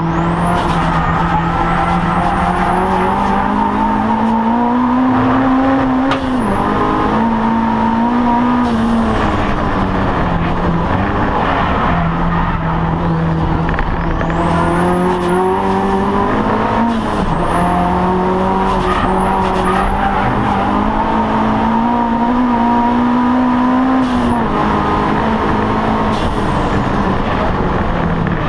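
Audi TT race car engine heard from inside the cockpit, pulling hard through the gears: its pitch climbs steadily, then drops sharply at several gear changes, with a high whine rising and falling along with the revs.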